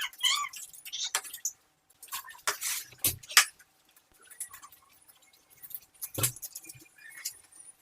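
A knife scraping scales off a herring and knocking on the cutting board: irregular scrapes and clicks, the sharpest a little after three seconds in and again past six seconds. A brief high squeaky call comes right at the start.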